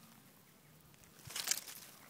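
A brief crackling rustle of dry leaves and grass about a second and a half in, loudest near its end, against a quiet outdoor background.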